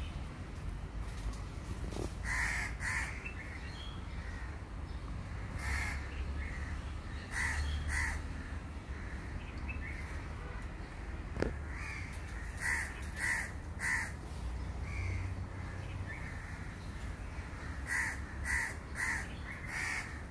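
Crows cawing off and on, in short runs of one to four caws, over a steady low background rumble. There is one sharp tap about eleven seconds in.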